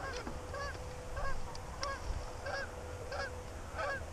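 Geese honking: a steady run of short, arched honks, about one every two-thirds of a second.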